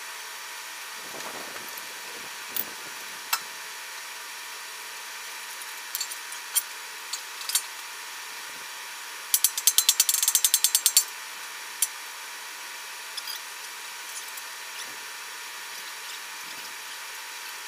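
Hand-tool work on a steel frame: scattered metal clicks and taps, a few dull thuds early on, and a fast run of about fifteen clicks over a second and a half near the middle, against a steady hiss.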